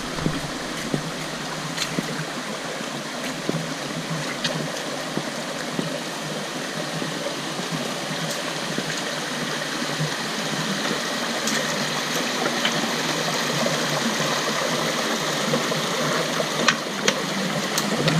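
A small creek trickling down over rock in little cascades: a steady rush of water that grows a little louder near the end, with a few light clicks over it.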